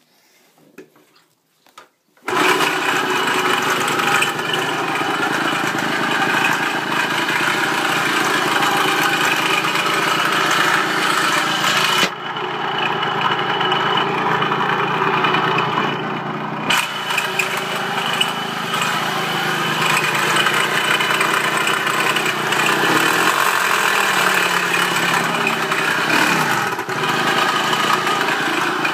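Kawasaki KE100 two-stroke single-cylinder engine catching about two seconds in and then idling steadily. It carries the chirping noise the owner likens to something not lubricated.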